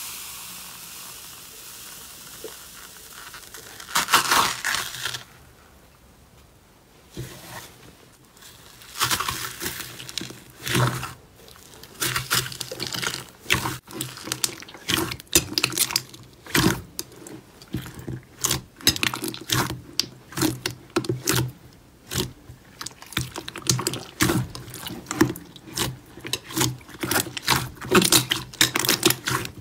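Slime being handled in a bowl: at first a soft, steady crackle as a hand presses into fluffy foam slime, then from about seven seconds in a long run of irregular wet squelches and clicking pops as glossy slime is squeezed and kneaded by hand.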